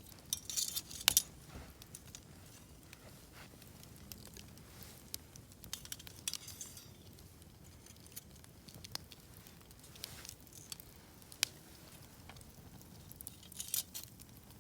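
Wood campfire crackling: irregular sharp pops and snaps over a faint low hiss, with short clusters of quick crackles about a second in and again near the end.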